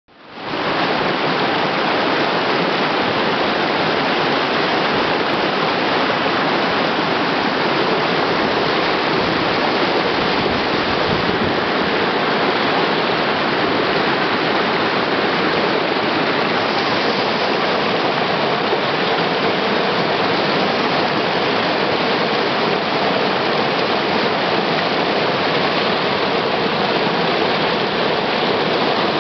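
River rapids rushing over rocks: a steady, even rush of white water that fades in over the first half second.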